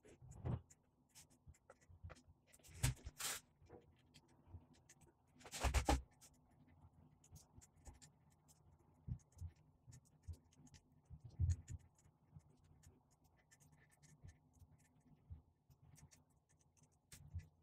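Light scraping and tapping of wooden finger-jointed panels being handled on a workbench, with a few louder wooden knocks about 3, 6 and 11 seconds in.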